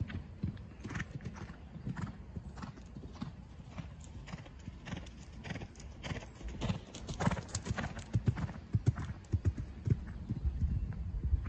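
A horse's hooves cantering on a chip-surfaced arena, a rolling run of muffled hoofbeats that grows louder from about seven seconds in.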